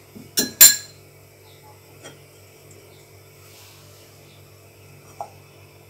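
Two quick, loud clinks of kitchenware knocking together about half a second in, with a fainter tap at about two seconds and another near the end. A steady low electrical hum runs underneath.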